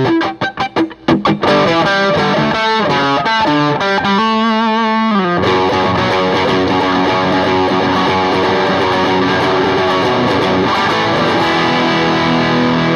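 Gibson Les Paul electric guitar played through an amp with the pickup selector in the middle, the neck volume down to about 3 or 4, the bridge volume at about 9 and the tone controls fully open: a slimmer, Telecaster-like tone. Short choppy chord stabs and a riff with one note shaken in vibrato about four seconds in, then a long ringing chord.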